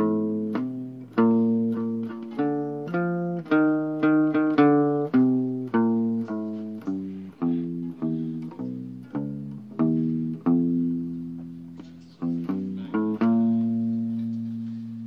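Music: a guitar playing a slow melody of single plucked notes, each struck sharply and left to ring out, with a few fuller chords near the end.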